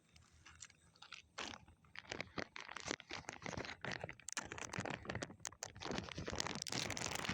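Close crackling, crunching rustle of something being handled, starting about a second in and growing louder near the end.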